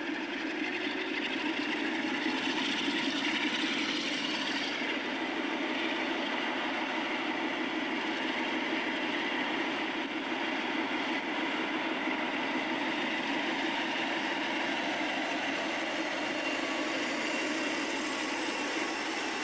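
Steady engine-like mechanical drone with a high whine; the whine rises in pitch a few seconds in and again near the end.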